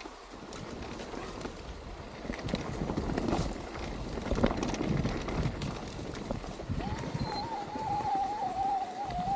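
Mountain bike riding down a rough trail: rumble and wind on the microphone, with irregular rattles and knocks from the bike. About seven seconds in, a steady, slightly wavering squeal starts.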